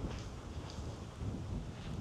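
Footsteps of people walking at a steady pace, about two steps a second, with a little wind on the microphone.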